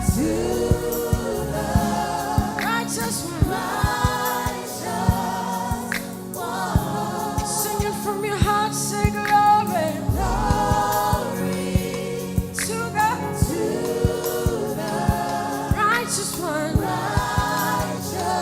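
A gospel worship team sings with a choir over a live band, with a steady drum beat under the sung lines.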